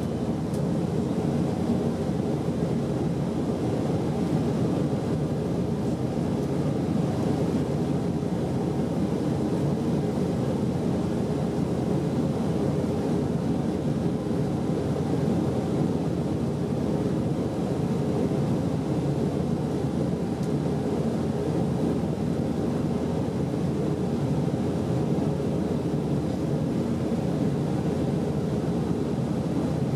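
Steady cabin noise of an Airbus A319 in flight, heard inside the cabin: a constant deep rumble of the jet engines and the rush of air past the fuselage.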